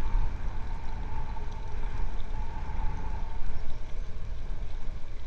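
Steady outdoor ambience on a livestream microphone: a low rumble with a faint continuous drone.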